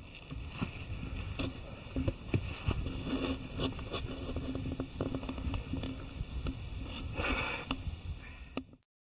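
Footsteps and rustling of a hiker walking a mountain trail, irregular scuffs and clicks over a low wind rumble on the microphone. A steady low hum is heard for a few seconds in the middle, and the sound cuts off abruptly near the end.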